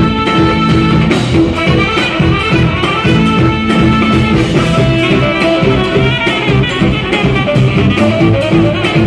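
Live jazz-fusion band playing loudly: a saxophone section and trumpet play sustained horn lines over electric bass and drums.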